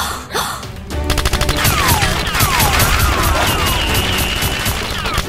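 Rapid automatic gunfire sound effect, a fast string of shots starting about a second in, with several falling whistling tones among the shots. Background music plays underneath.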